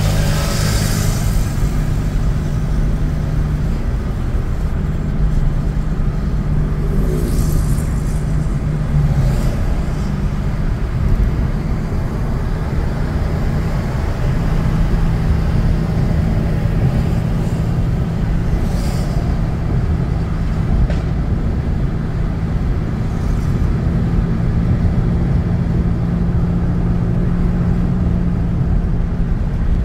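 A motor vehicle driving on the road: steady engine drone and road rumble, the drone's pitch shifting a few times, with a few brief high hisses.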